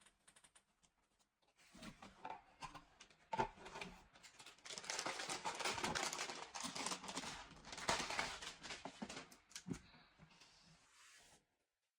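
Packaging being crinkled and handled, with many small clicks and a sharp knock about three seconds in. It builds to a dense crackling in the middle and stops abruptly near the end.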